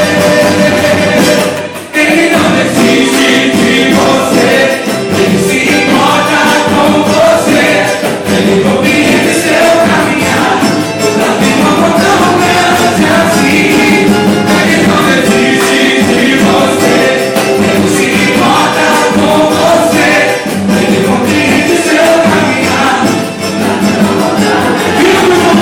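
Samba group playing a gospel samba song, with singing over a full band and percussion; the music drops out briefly about two seconds in, then carries on.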